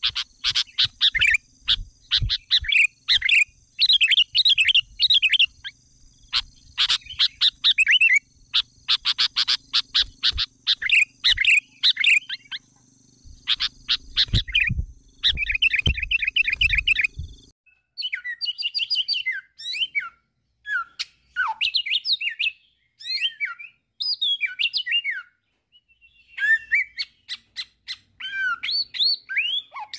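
Small songbirds chirping, with quick repeated calls and rapid trills.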